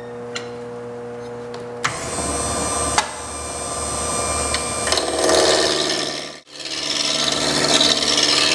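Wood lathe switched on and spinning up, then a 3/4-inch roughing gouge cutting into the spinning square wood blank, rounding it off: a loud, steady cutting noise over the lathe's motor. The sound drops out briefly about two-thirds of the way through.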